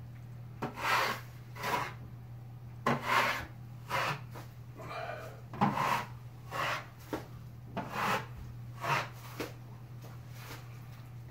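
Wide drywall taping knife scraping across the ceiling as it spreads and feathers wet joint compound: about a dozen short rasping strokes, roughly one a second, over a steady low hum.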